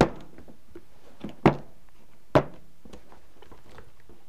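Latches of a hard plastic rifle case snapping open: three sharp clicks, one at the start, one about a second and a half in, and another just under a second later.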